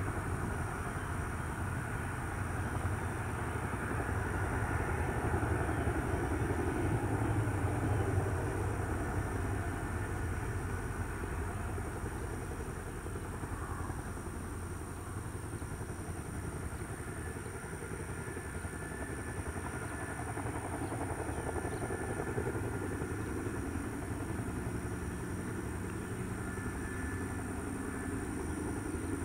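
Boeing CH-47 Chinook's tandem rotors and twin turboshaft engines running as it taxis: a steady low rumble that swells a little a few seconds in, then eases.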